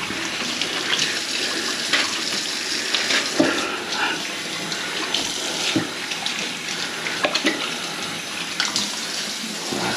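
Water running steadily from a kitchen faucet into the sink, with a few short, sharp splashes or knocks along the way.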